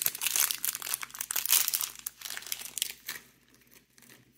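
Crinkly packaging being handled and unwrapped by hand: many quick crackles that die down after about three seconds.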